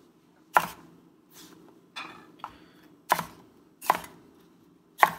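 A cleaver chopping a green bell pepper into rough chunks on a plastic cutting board. Each stroke knocks sharply as the blade hits the board, about five times at roughly one-second intervals, and one of the knocks is softer.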